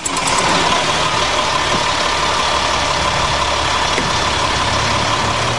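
Service truck engine running steadily with its VMAC VR140 underhood rotary-screw air compressor, a loud even run with a low hum, a high hiss and a steady tone above it.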